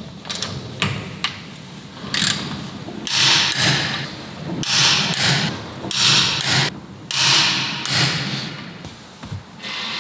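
Torque wrench ratchet clicking in a series of quick back-and-forth strokes as a car's wheel nuts are run down and tightened, with a few separate knocks and clicks of the wrench and nuts at the start.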